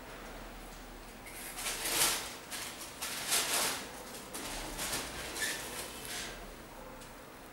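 Hands handling and turning a knit-upper sneaker: a string of short rustles and scrapes that starts about a second in and stops about a second before the end.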